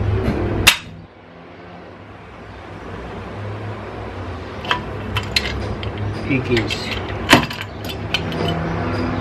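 Hand tools clicking and clinking on metal while the small cylinder-head bolts are tightened to a light torque, in the order of the tightening sequence. There are a few sharp clicks, the loudest about seven seconds in, over a steady low hum.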